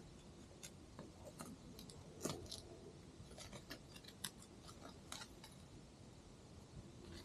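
Faint, irregular crackles and snaps of dry twigs and brush being stepped on and handled, with a louder snap about two seconds in.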